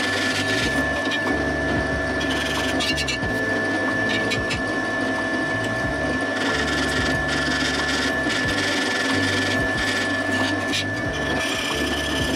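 A motorised machine tool running as it cuts an aluminium plate. It gives a steady high whine over a low hum that steps up and down in pitch every second or two, with short bursts of scratchy cutting noise a few times.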